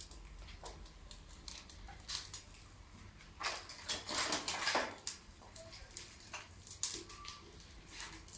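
Wood fire in a chulha crackling, with scattered sharp pops and clicks. A longer rustling scrape comes about halfway through.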